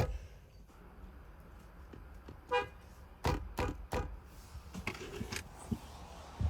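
Car horn giving a single short toot about two and a half seconds in, followed by three sharp knocks in quick succession and a faint short honk near the end.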